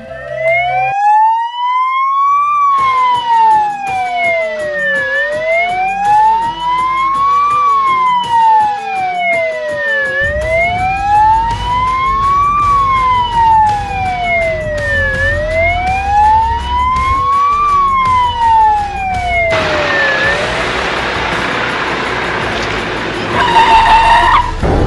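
Fire truck's siren on a slow wail, rising and falling about every five seconds, four times over, with the truck's engine running beneath. The wail cuts off about 20 seconds in, giving way to a loud hiss.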